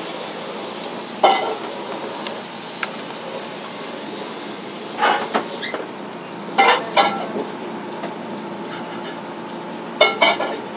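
Beef butter rice frying in a pan: a steady sizzle, with a few sharp knocks of a utensil against the pan as it is stirred. The sizzle thins out a little over halfway through.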